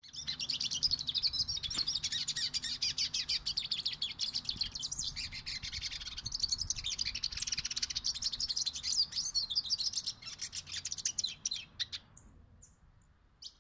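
Male hooded siskin (cabecita negra) in full song: a long, fast, continuous twittering warble that breaks off about twelve seconds in, followed by a few separate short notes near the end.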